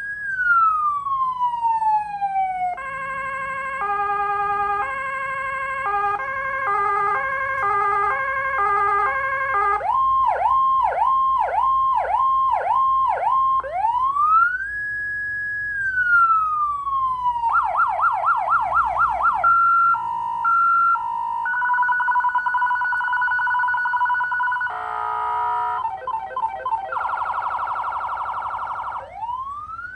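Electronic vehicle siren cycling through its tones one after another: a slow wail, stepped multi-note patterns, a rapid yelp of about two sweeps a second, a two-note hi-lo, a steady double tone and a fast warble. It ends rising into a wail again.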